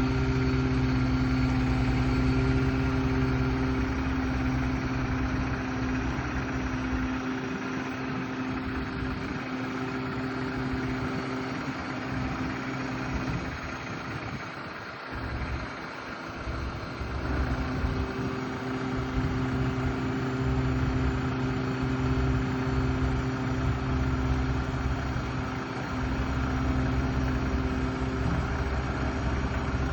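Engine idling steadily with a low, even hum. The hum weakens for several seconds in the middle, then comes back strong.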